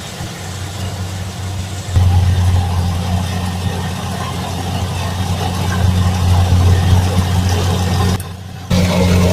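Combine harvester's engine running with a steady low hum, getting louder about two seconds in and dropping out briefly near the end.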